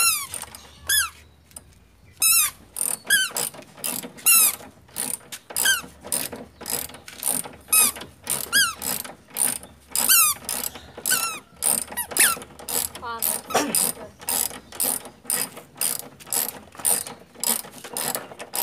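Strange repeated squeaky clicking from the front-left wheel area of an old Suzuki Baleno, a ratchet-like tick with a short squeak on each stroke. It comes about once a second at first, then about twice a second from roughly five seconds in.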